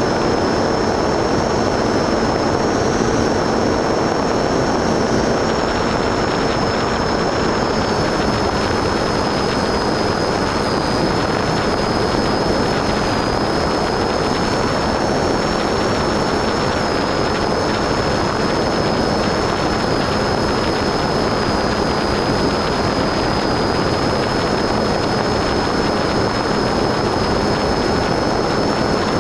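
Onboard sound of an FPV model aircraft in flight: a steady rush of wind and propeller noise with a thin, high motor whine holding nearly the same pitch.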